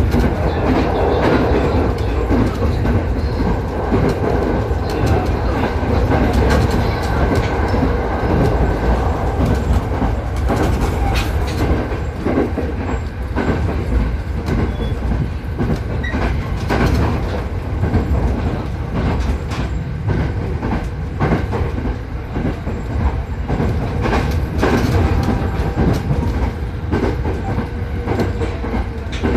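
Running noise inside a JR 209 series electric train car at speed: a steady rumble of wheels and running gear, with faint steady hum tones and repeated clicks as the wheels pass over rail joints.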